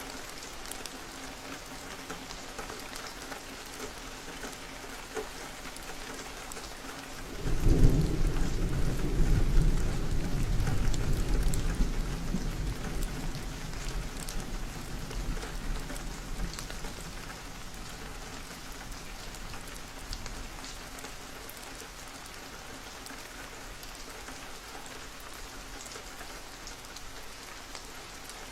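Steady rain falling. About seven seconds in, a loud low rumble of thunder rolls in suddenly and fades away slowly over about ten seconds.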